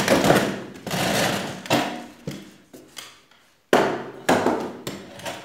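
Wooden chair being rocked and pushed on a concrete floor, its legs knocking down about eight or nine times at uneven intervals. The newly screwed joints hold, with no wobble left.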